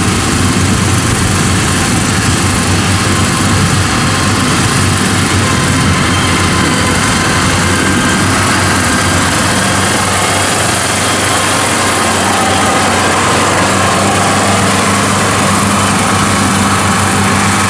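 Engine of a small tracked rice transporter running at full throttle as it crawls across the harvested paddy: a loud, steady engine drone, with a hum that grows clearer about twelve seconds in.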